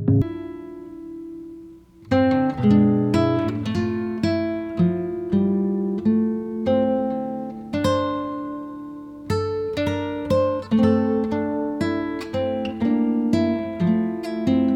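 Background music: acoustic guitar plucking and strumming chords in a steady rhythm, after a held note that fades out about two seconds in.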